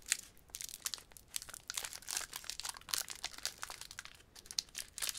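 Foil wrapper of a Pokémon trading-card booster pack crinkling in the hands as it is opened, a dense run of quick, sharp crackles.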